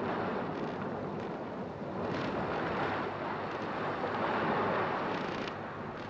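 Rough sea water washing and splashing around a boat: a steady rushing noise.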